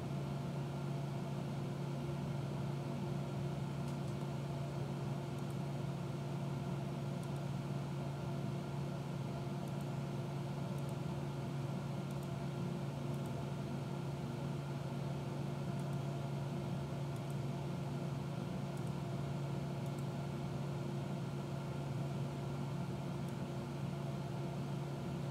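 A steady low hum with several faint, evenly held tones above it, unchanging throughout, and a few faint ticks scattered over it.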